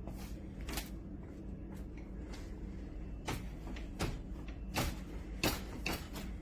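Irregular light clicks and knocks, about ten of them, over a steady low hum.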